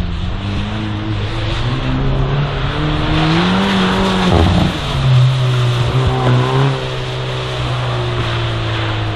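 Hyundai i30 N's turbocharged four-cylinder engine pulling hard, its revs climbing for a few seconds, dropping sharply about four seconds in, then holding fairly steady. Tyres hiss through standing water on the wet tarmac throughout.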